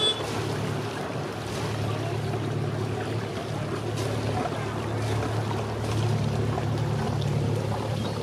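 Motor cruiser inboard engines running with a steady low drone, a little louder in the second half.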